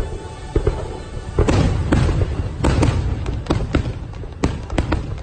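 Aerial fireworks bursting: a rapid string of sharp bangs and crackles, with the heaviest burst about a second and a half in.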